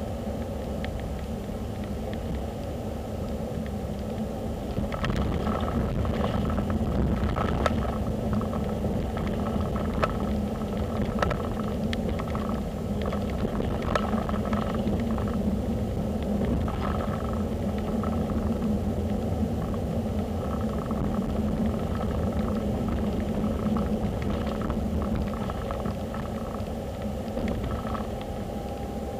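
Car on the move: a steady low rumble of engine and tyre noise, getting somewhat louder about five seconds in, with scattered light knocks.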